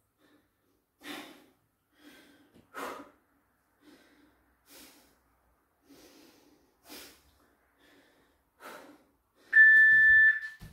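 A man breathing hard while holding a plank, a sharp breath out about every two seconds with fainter breaths in between. Near the end comes one steady electronic beep, under a second long and the loudest sound, from the workout's interval timer.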